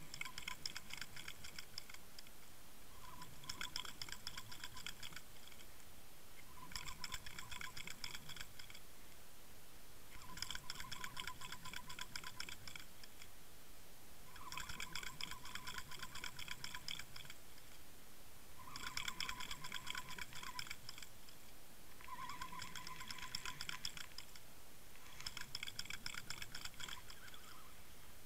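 Bursts of rapid, even ticking, each about two seconds long, repeating about every three and a half seconds. The ticking is picked up by an underwater camera rigged on the fishing line while a jointed swimbait lure is retrieved in stop-and-go pulls.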